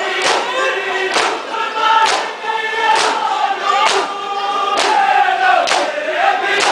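A crowd of Shia mourners chanting a lament while beating their chests in unison (matam), the slaps landing together about once a second over the singing voices.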